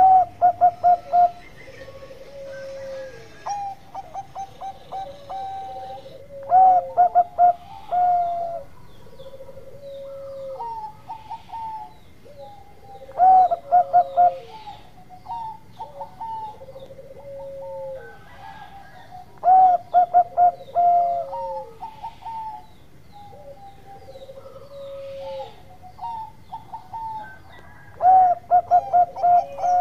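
Bangkok-type zebra dove (perkutut) singing its staccato cooing song, a loud phrase of quick repeated coos about every six to seven seconds, five times, with softer, lower coos in between.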